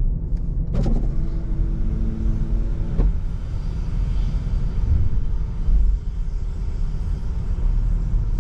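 Low, steady rumble of a car. About a second in, a click starts a steady pitched tone that ends with another click about two seconds later.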